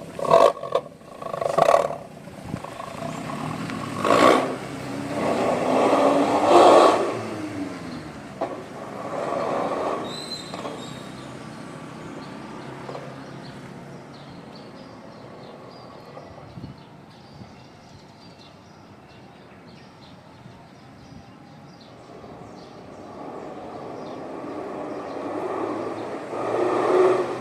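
Suzuki New Carry pickup's four-cylinder engine through an aftermarket SUOS three-branch exhaust with a deep growling 'ngorok' note. It is blipped and revved up and down several times over the first ten seconds, drops back to idle, then is revved up again near the end.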